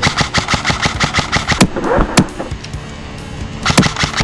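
Airsoft electric rifle firing full-auto: a rapid string of shots lasting about a second and a half, then another short burst near the end.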